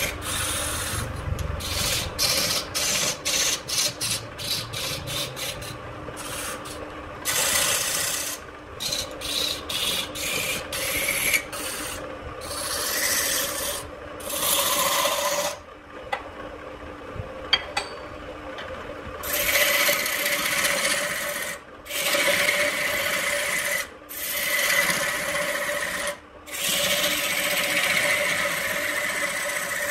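A lathe chisel scraping and cutting into a spinning red-wood vase blank. It comes in rough strokes broken by short pauses where the tool lifts off, with a quieter spell about halfway through and longer continuous cuts near the end, over the steady hum of the lathe's electric motor.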